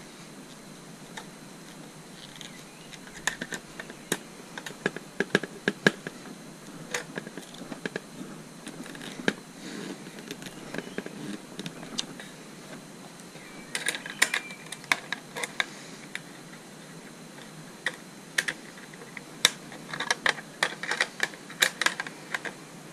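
A screwdriver and small screws clicking and tapping against a motorcycle headlight's metal bezel and a plastic fly screen as the screen is fitted. The clicks come irregularly, in a few clusters of quick taps.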